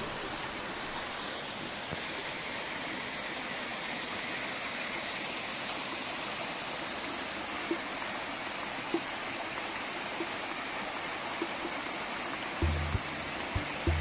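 Water of a small rocky stream splashing down a cascade: a steady rushing. Near the end, low notes of background music come in.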